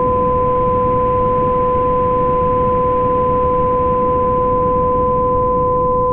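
Computer-generated binaural-beat tones made in Audacity: two steady pure tones, one near 500 Hz and one near 1 kHz, held without change over a constant rushing noise bed.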